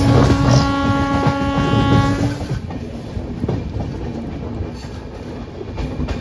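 Train horn sounding one long steady blast, ending about two and a half seconds in. Underneath and after it, the coach's wheels rumble and clatter over the rail joints as the train runs.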